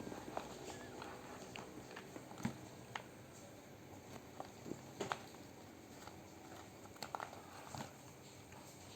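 Mother cat's mouth noises during birth: faint, irregular wet clicks and smacks as she works at a newborn with her mouth and tongue.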